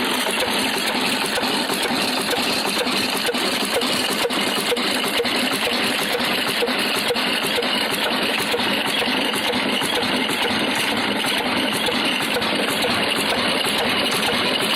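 Old stationary diesel engine and the stone wheat grinder (flour mill) it drives, running steadily with a rapid, even mechanical clatter.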